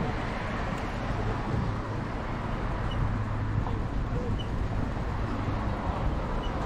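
Steady road traffic noise: cars passing on a multi-lane road beside the bike lane, a continuous rumble of tyres and engines.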